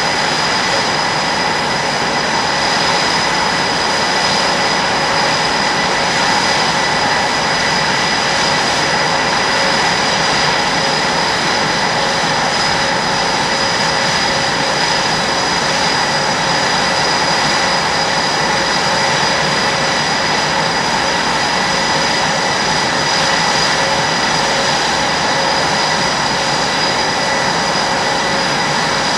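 Twin jet engines of a Blue Angels F/A-18 Super Hornet running at ground idle after start-up. A steady rushing noise carries several steady high whining tones.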